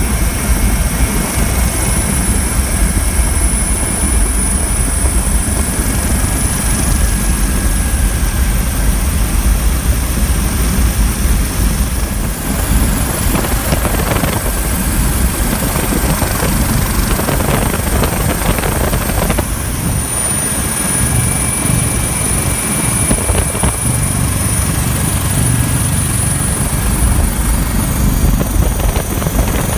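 Coast Guard MH-65 Dolphin helicopter in flight, heard from inside the cabin: a steady rotor and turbine din with a low rumble and a thin high turbine whine over it.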